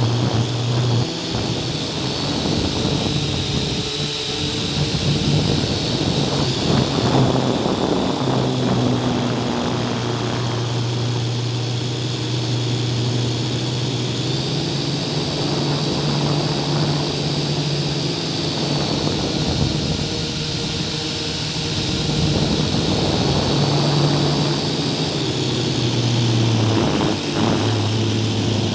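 Multirotor drone's electric motors and propellers humming steadily, picked up by a camera mounted on the drone itself. The pitch steps up and down now and then as the throttle changes during the climb.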